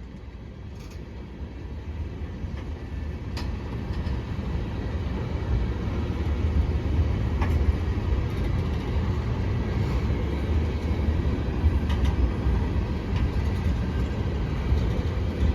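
Diesel freight locomotives running with a low rumble that builds steadily louder as the manifest train gets moving, with a few faint clicks.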